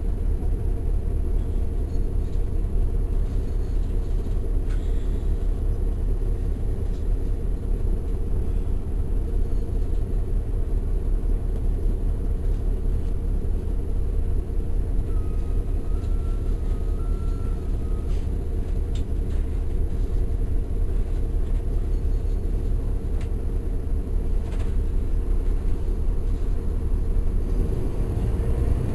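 Caterpillar C13 ACERT diesel engine of a 2009 NABI 416.15 transit bus, heard from the rear of the passenger cabin, running with a steady low rumble. A short two-pitch electronic tone sounds about halfway through, and the rumble starts to swell right at the end.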